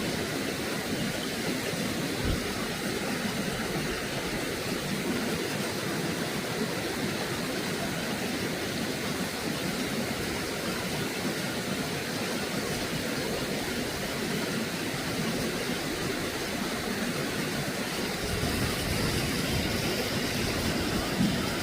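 Steady rushing of stream water, an even noise that grows a little louder and deeper near the end.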